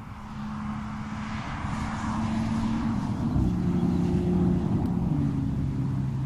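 Audi SQ5 driving past at speed: its engine note grows louder as the car approaches, steps up in pitch about halfway, then drops in pitch as the car goes by and starts to fade.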